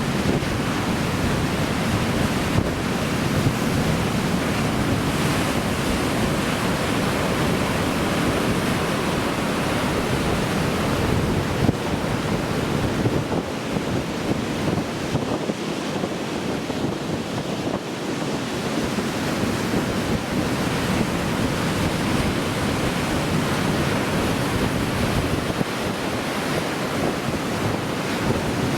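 Heavy typhoon swell breaking continuously on the shore, a steady rushing wash of surf that eases slightly about halfway through. Wind buffets the microphone throughout.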